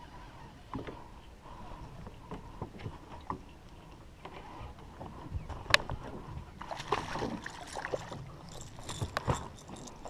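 Scattered clicks and knocks while a hooked fish is fought and brought in, then louder, irregular splashing and rustling from about two-thirds through as the fish comes to hand.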